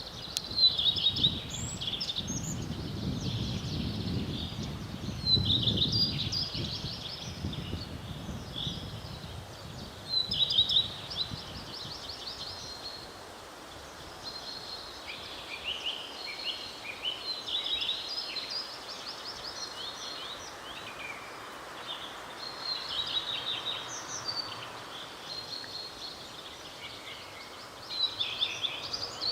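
A songbird singing short trilled phrases, about seven of them, a few seconds apart. A low rumble runs underneath for the first nine seconds or so.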